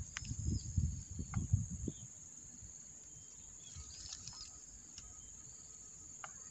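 Steady high-pitched insect buzzing with a few short, faint bird chirps; low thumps and rumble in the first two seconds.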